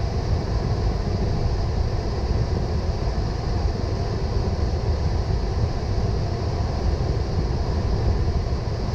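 Steady low rumble with a hiss above it on the flight deck of a Boeing 777.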